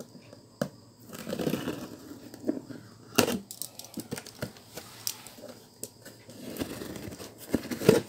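Box cutter slicing through packing tape along the seam of a cardboard carton: scraping and tape crackling, with scattered knocks against the cardboard, the sharpest about three seconds in and another near the end.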